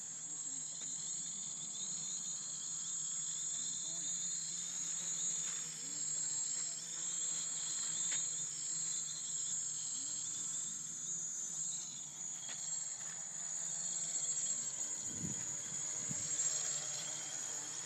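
Small electric quadcopter's motors and propellers buzzing at a high pitch that wavers up and down as it manoeuvres. A brief low rumble comes about fifteen seconds in.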